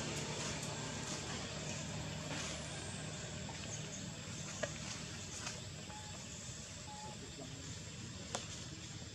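Outdoor ambience carrying a low steady hum of distant vehicle traffic that slowly fades, with three brief sharp clicks in the second half and a couple of short faint bird calls.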